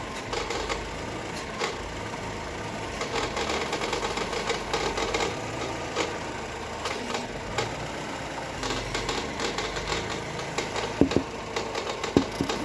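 Chevrolet Cobalt's 1.5-litre B15D2 engine running with a loud, irregular crackling and clatter, as if bolts had been thrown in, with a few sharper knocks near the end. The noise comes from a failed belt tensioner pulley assembly on the accessory belt drive, clogged with dirt after oil was spilled onto the belts.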